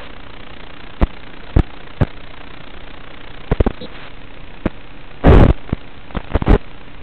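Steady hiss of static from an FPV drone's analog video link, broken by sharp crackles and pops, with a loud burst of crackle about five seconds in.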